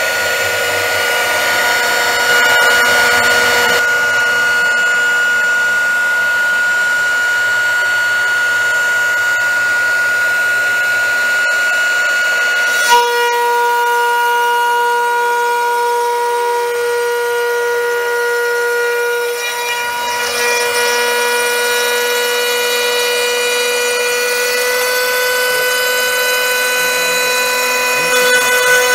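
CNC router spindle running with a steady high whine while milling a wooden slat, with cutting noise underneath. The tone changes and the low cutting noise eases about halfway through.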